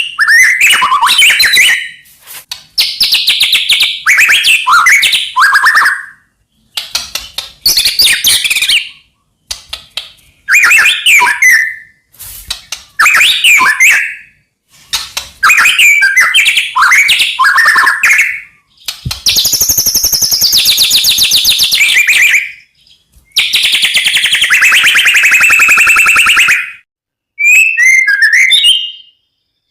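White-rumped shama (murai batu) singing loudly in short whistled phrases separated by brief pauses. Two longer harsh, rattling phrases come about two-thirds of the way through.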